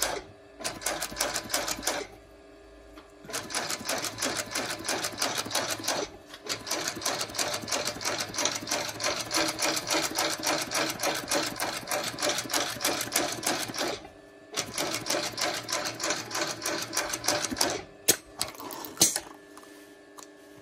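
Famas 224 TK sole-stitching sewing machine stitching a shoe upper to its sole in several runs of rapid, even needle strokes, stopping briefly between runs, with a steady hum carrying on through the pauses. A few sharp clicks come near the end, as the stitching stops.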